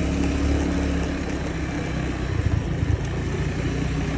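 Motor vehicle engine running steadily with a low hum, with a few small uneven bumps a little past halfway.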